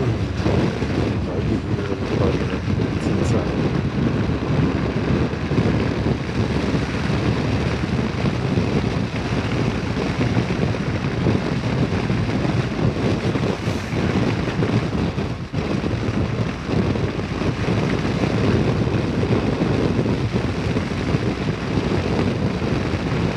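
Steady wind rush on the microphone of a motorcycle at road speed, with the BMW R1200GS's flat-twin engine and tyre noise underneath.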